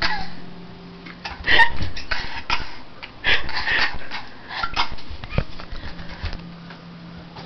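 Girls laughing and giggling in short, irregular bursts, with a faint steady low hum underneath at the start and again near the end.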